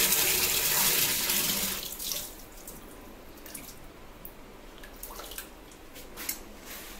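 Water from a wall-mounted bib tap pouring into a plastic bucket, the tap being tested after a washer change; the flow is shut off about two seconds in. A few light clicks follow as the tap is handled with a metal tool.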